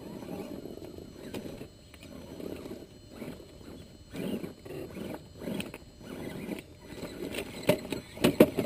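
Axial SCX10 scale RC crawlers' electric motors and gear drivetrains growling in short, stop-start bursts as the trucks crawl over loose rocks. Sharp knocks of tyres and shifting rocks near the end.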